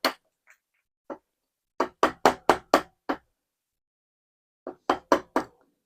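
Sharp knocks of a chisel being struck and driven into wood while chopping out a recess: a single blow, another about a second later, a quick run of about six, then four more near the end.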